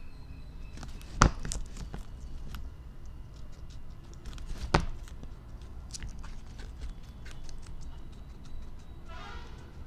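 Guinea pig chewing a cucumber slice: a string of small crisp clicks, with two louder clicks about a second in and near the five-second mark. A brief pitched chirp comes near the end.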